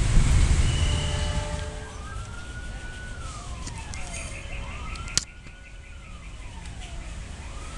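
A passing train's low rumble fades away over the first second or two. Then a siren wails, rising, holding and falling slowly three times about every two and a half seconds, with a sharp click about five seconds in.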